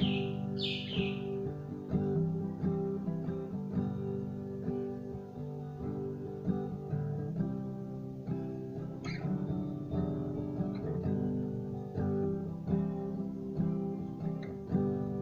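Acoustic guitar, an Allegro, strummed and picked in steady rhythmic chords in the key of G. It is strung with rusty strings that are due for replacement.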